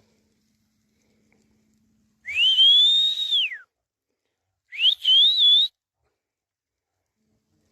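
Reindeer herder whistling to drive the herd: two loud whistles, the first rising, held and then falling away, the second shorter, rising and wavering.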